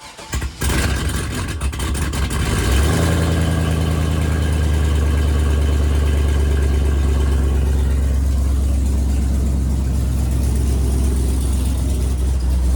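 Chevrolet Silverado's 6.0-litre LS V8 cranking and catching on a charger-boosted battery, running rough for a couple of seconds. It then settles into a steady idle from about three seconds in.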